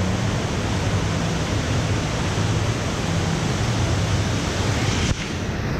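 FlowRider surf simulator's pumped sheet of water rushing over the wave surface: a loud, even rush with a steady low hum beneath.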